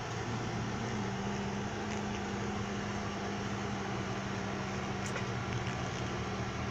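Steady low machine hum with an even hiss behind it. About five seconds in, a single faint click from the concave cutters snipping at a branch stub to trim it flush with the trunk.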